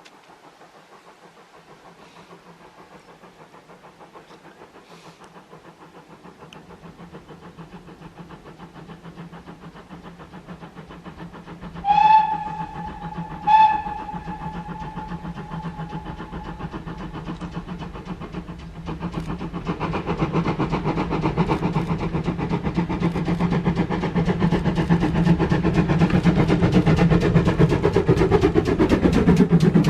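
Steam locomotive approaching, sounding two whistle blasts about a second and a half apart, then its running sound growing steadily louder as it draws near.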